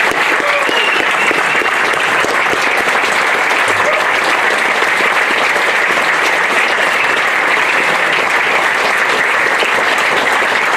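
Audience applauding: a sustained round of dense clapping that holds steady throughout.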